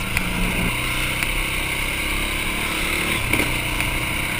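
Racing ATV (quad) engines running, their pitch shifting as they are revved, over a steady hiss.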